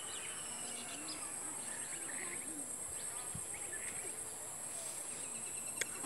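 Steady high-pitched drone of insects, such as crickets or cicadas, in overgrown grass and hedges, with scattered short bird chirps. A single sharp click comes near the end.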